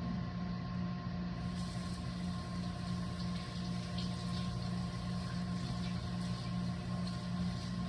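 Microwave oven running with a steady low hum while it heats a bowl of chili. About a second and a half in, a light hiss with faint clicks starts on top of it.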